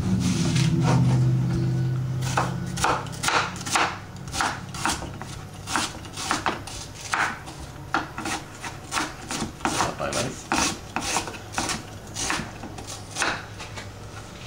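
Chef's knife slicing an onion on a wooden cutting board, in irregular strokes two or three a second, each cutting through and knocking the board. The blade is not as sharp as the cook likes. A low steady hum fills the first two seconds.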